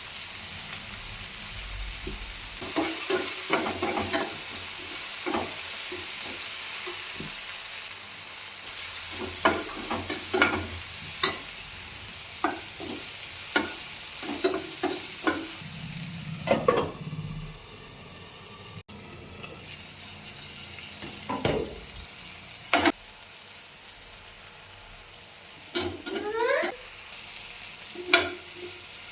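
Chopped onion, green chillies, curry leaves and tomato sizzling in hot oil in a pan while a spatula stirs, scraping and tapping against the pan many times. The sizzle gets quieter about two-thirds of the way through, and there is a short rising squeak near the end.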